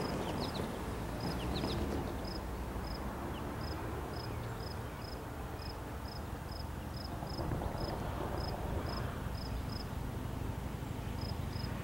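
Low, steady rumble of Norfolk Southern diesel locomotives, with a short high insect chirp repeating about twice a second over it.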